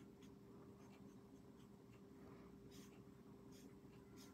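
Faint scratching of a marker tip stroked across a small piece of cardstock, a few short strokes, over a faint steady hum.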